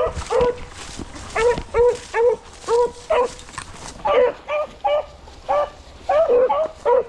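Hunting beagles opening on a scent trail: short, clipped barks in a steady string, about two a second, coming faster and overlapping after about four seconds.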